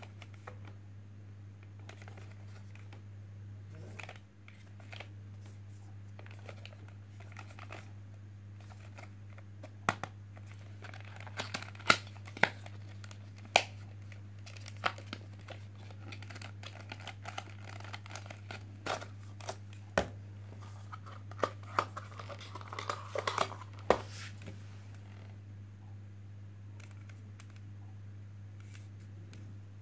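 Plastic packaging being handled and opened: crinkling and tearing with a series of sharp clicks and snaps, busiest in the middle stretch, over a steady low hum.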